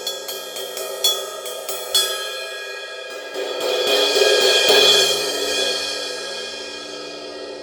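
Zildjian I crash cymbal struck twice about a second apart, each hit ringing on, then a wash that swells to its loudest about halfway through and slowly rings away.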